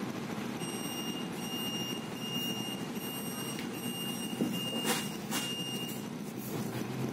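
Double-decker bus idling with a steady low rumble, while a high electronic beep sounds over and over in short pulses for about five seconds, with two sharp clicks near the end of the beeping.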